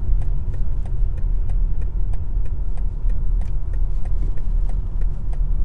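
Turn-signal indicator ticking steadily, about two and a half ticks a second, over the low road and tyre rumble inside the cabin of a BMW iX1 electric car on the move.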